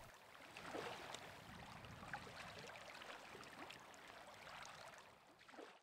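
Faint lakeside ambience: a low, even wash of wind and rippling water, with a few small ticks.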